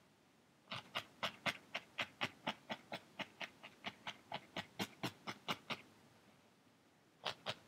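Felting needle stabbing again and again through loose wool into a foam pad: a steady run of short pokes, about four a second. They stop for a second or so near the end, then start again.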